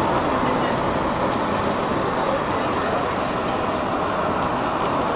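Walt Disney World monorail moving along its elevated beam: a steady rush of travel noise.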